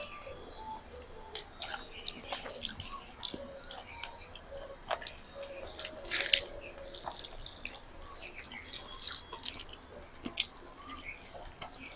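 Eating by hand: wet smacking and chewing of mouthfuls of rice and curry, and the squish of fingers mashing rice into gravy on steel plates, heard as a steady run of small wet clicks. One louder sharp smack comes about six seconds in.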